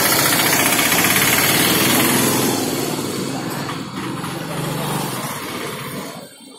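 Auto-rickshaw's single-cylinder engine running close by with a fast, rough chugging, loud at first and fading away over the last few seconds.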